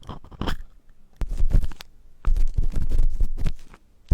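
Close-up scratching and rubbing on the microphone, ASMR trigger sounds with a heavy low rumble, in two stretches starting about a second in and again after about two seconds, with a few short clicks before them.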